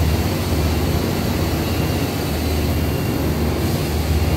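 Steady drone of an alloy-wheel CNC machining line: a strong low hum under a constant noisy hiss.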